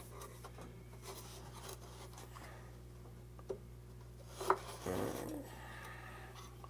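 Cut wooden pieces handled and fitted together: faint rubbing and light clicks, with one sharper knock about four and a half seconds in, over a steady low hum.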